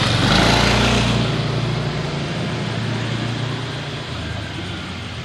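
A motor vehicle passing close by, its engine loudest in the first second and then slowly fading away.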